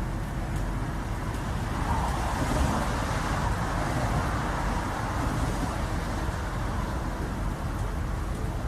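Steady hum of highway traffic, with one vehicle passing that swells about two seconds in and fades again by about six seconds.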